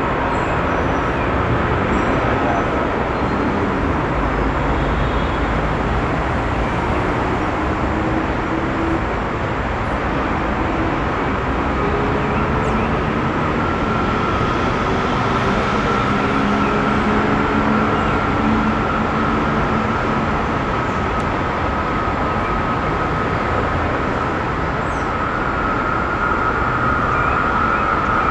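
Electric metro train running: a steady rumble with a high whine that grows louder about halfway through and again near the end, and lower humming tones that step up in pitch through the middle.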